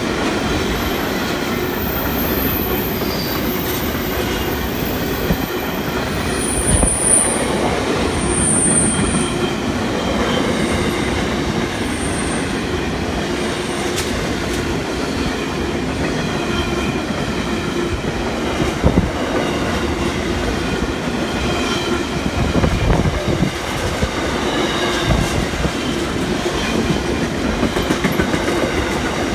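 Freight train wagons rolling past close by: a steady rumble of steel wheels on the rails, with a faint high wheel squeal wavering on top.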